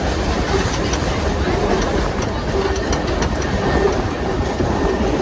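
Passenger train coach rolling along the track, heard from aboard: a steady rumble of wheels on rails with some clickety-clack.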